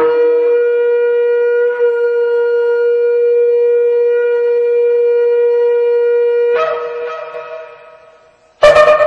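A long horn blast held on one steady note for about six and a half seconds, then stepping up in pitch and dying away. Loud music starts just before the end.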